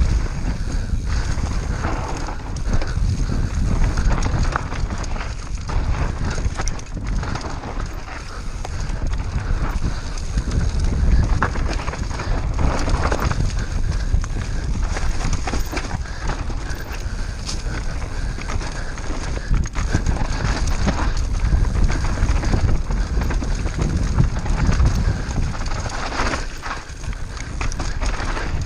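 Mountain bike ridden fast down a dirt singletrack: tyres on dirt and the frame, chain and suspension knocking and rattling over roots and rocks, with wind buffeting the bike-mounted camera's microphone.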